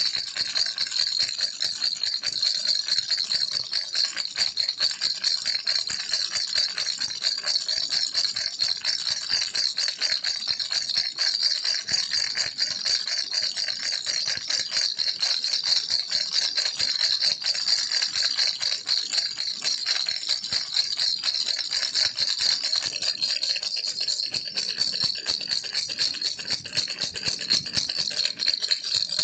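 Baby rattle shaken quickly and without pause, a dense, steady clatter.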